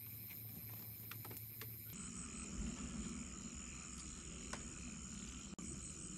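Small wood and bamboo fire crackling with a few sharp pops. About two seconds in, this gives way to night ambience: a steady high insect trill with a pulsing chirp just above it.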